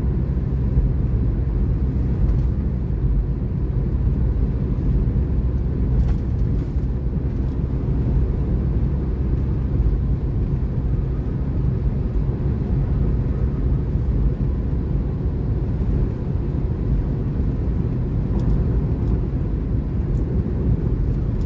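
Steady low road noise of a car cruising on a concrete toll road, heard from inside the car: tyre rumble on the concrete with engine hum.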